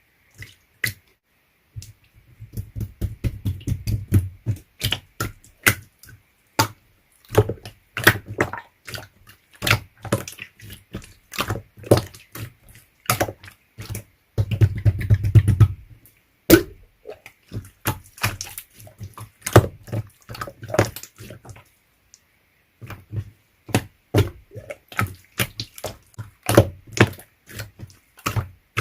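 Clear slime being squished and pressed by hand, giving a fast run of sticky clicks and pops, with denser squelching twice, a few seconds in and about halfway through.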